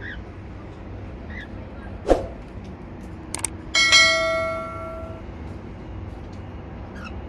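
A sharp knock, a couple of clicks, then a single bell-like metallic ring about four seconds in that fades over about a second and a half, as of a small bell or metal fitting struck in the aviary. Faint short bird chirps at the start, over a steady low background hum.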